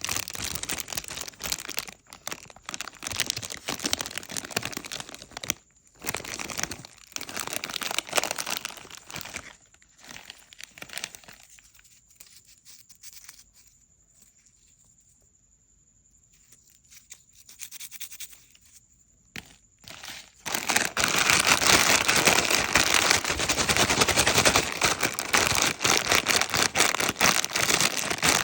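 Crinkly plastic snack packaging being handled and opened: dense, rapid crackling and crinkling, a near-silent pause in the middle, then louder, continuous crinkling from about two-thirds of the way through.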